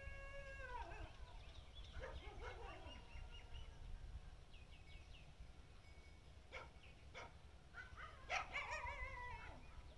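An animal calling several times: drawn-out pitched cries that fall off at their ends, the last one near the end long and quavering, over a steady low rumble.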